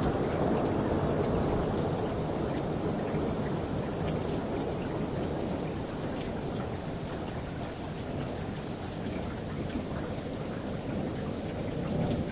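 Thunderstorm: a long low rumble of thunder slowly dying away under a steady hiss of rain and wind, with the next rumble beginning to swell near the end.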